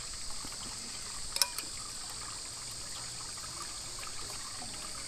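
Pond-side outdoor ambience: a steady trickle of running water with a constant high insect drone. One sharp click about a second and a half in.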